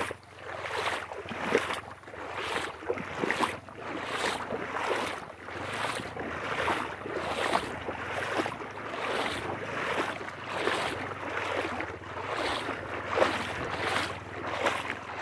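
Footsteps wading through a river in boots, splashing rhythmically about twice a second; the water is deep enough to come over the boot tops.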